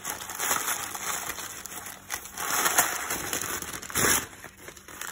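Packaging rustling and crinkling as it is handled, in irregular bursts, with a short louder rustle about four seconds in.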